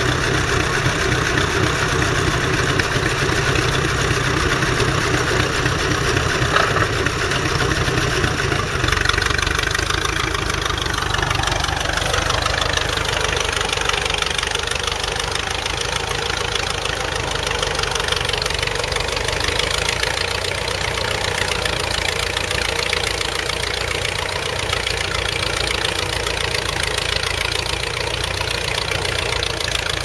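1946 Fordson Major E27N's 4.4-litre four-cylinder side-valve petrol/TVO engine running steadily under load, pulling a mounted plough through the ground. About ten seconds in, its note falls in pitch over a couple of seconds, then holds steady at the lower speed.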